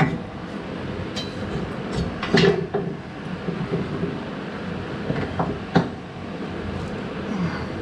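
Steel coil spring of a Jeep Cherokee XJ front suspension knocking and clanking against the axle's spring seat as it is worked into place by hand: a handful of sharp knocks, the loudest about two and a half seconds in and again near six seconds, over a steady background hiss.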